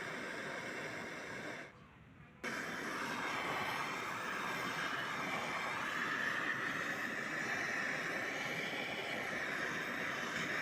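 An electric power tool running steadily with a whirring, grinding noise, cut off for under a second about two seconds in and then running again.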